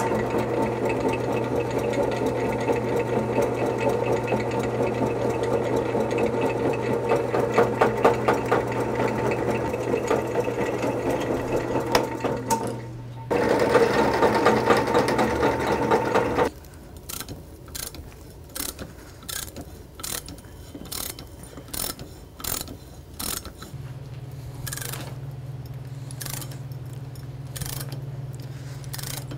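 Benchtop drill press running and drilling into a steel channel, a steady motor hum under the cutting noise, with a brief let-up in the cut near the middle; it stops after about sixteen seconds. Then irregular light clicks from a hand tap being turned to cut threads in square steel tube.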